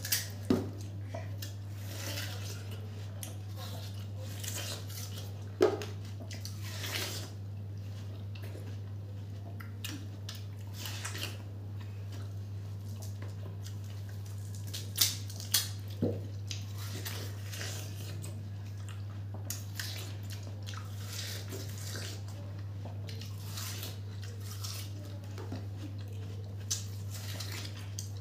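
Two people biting into and eating watermelon slices, with wet, crunchy biting and slurping throughout and a handful of sharp knocks. A steady low hum runs underneath.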